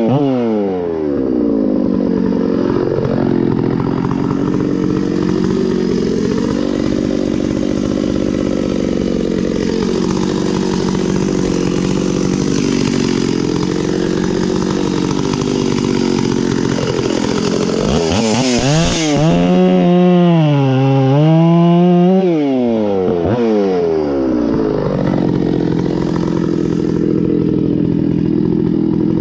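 Stihl 066 Magnum two-stroke chainsaw cutting through wood, the engine held down steadily under load in the cut. About two-thirds of the way through it revs up high out of the wood for a few seconds, then drops back into the cut.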